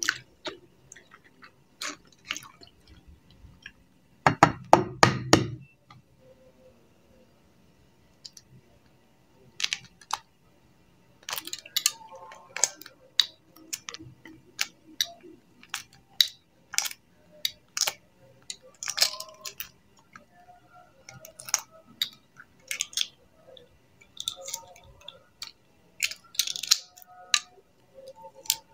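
Shell of a half-boiled free-range chicken egg cracking and crackling as it is peeled by hand, with scattered sharp clicks of shell pieces and small clinks against a metal pot. A loud quick run of knocks comes about four seconds in.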